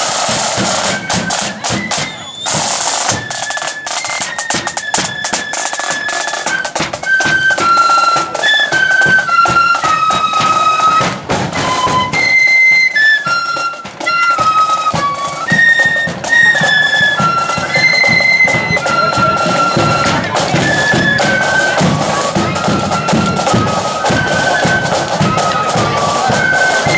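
Blood-and-thunder marching flute band playing a tune: flutes carry the melody over the beating of side drums and a bass drum.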